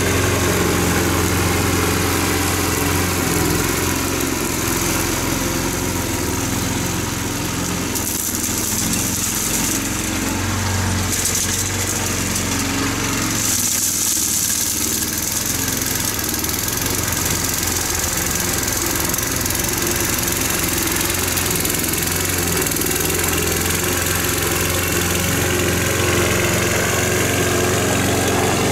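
Small gasoline engine of a walk-behind lawn machine, either a power rake or a mower, running steadily under load as it is pushed across a lawn. It gets a little quieter midway as it moves off and comes back.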